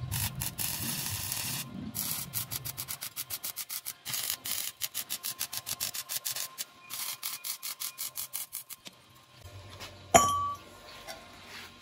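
Stick (arc) welding on a steel frame: the electrode's arc crackles and sputters in several runs with short breaks, stopping about 9 s in. About a second later comes a single sharp metallic clink that rings briefly.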